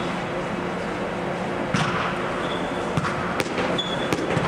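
Gym court sounds under a steady low hum from the inflated dome's air blowers: a few sharp thumps of a ball striking hands or floor, and brief high sneaker squeaks on the wooden court.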